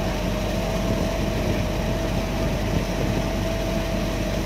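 River ferry's engine running steadily under way, a continuous low rumble with a constant hum over it.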